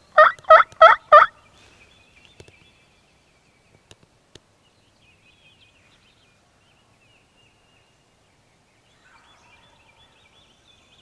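A quick series of five loud turkey yelps, about three a second, cutting off after about a second; a hen-style yelp sequence used to call a gobbler in. Faint high bird chatter follows.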